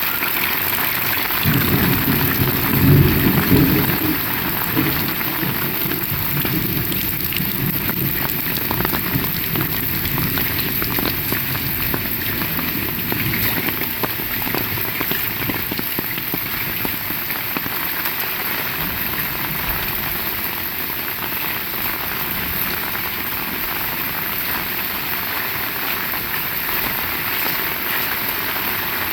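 Heavy rain falling steadily, with a low roll of thunder starting about a second and a half in, loudest around three seconds and rumbling away over the next several seconds.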